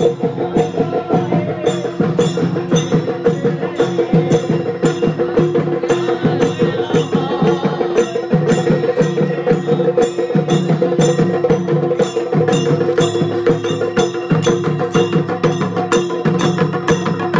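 Processional percussion music: drums struck in a steady, driving beat, with a metallic ringing on each stroke and a steady held tone underneath.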